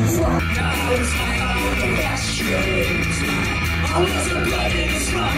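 Live punk rock band playing loud amplified music: electric guitars, bass, drums and vocals. The music switches abruptly to a different song about half a second in.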